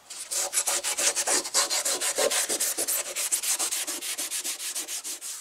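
Maroon non-woven abrasive scuff pad rubbed by hand over a painted steel car roof in fast, even back-and-forth strokes, scuffing the old paint so primer will grip. The strokes stop abruptly near the end.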